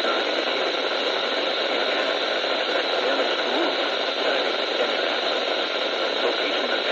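Steady hiss of radio static from a radio receiver, even and unbroken, with no voice coming through.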